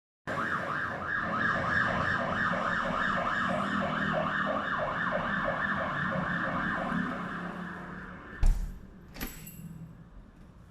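Emergency-vehicle siren in a fast yelp, sweeping up and down about three times a second. It cuts off abruptly with a heavy thump about eight and a half seconds in, followed by a sharp click a moment later, as a soundproof door is shut against the noise.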